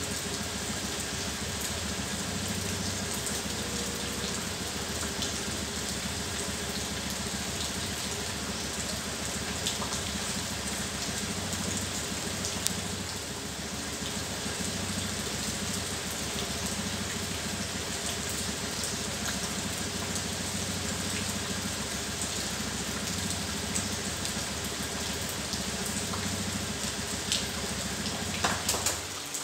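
Honda Scoopy scooter's single-cylinder engine idling steadily under a constant hiss, switched off just before the end, when the low running sound cuts out abruptly.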